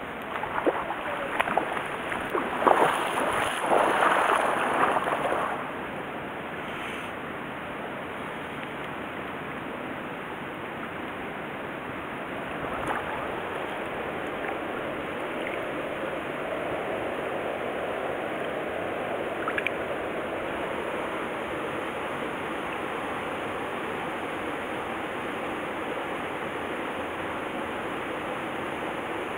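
Stream water running steadily, with a louder, choppy stretch of irregular noise in the first five seconds.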